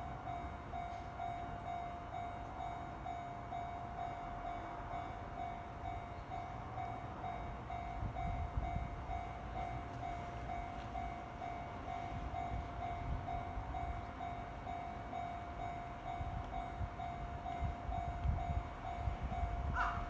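Japanese level-crossing warning bell ringing in a steady, evenly repeated single-pitched ding, while a train rumbles past, the rumble growing from about eight seconds in and loudest near the end.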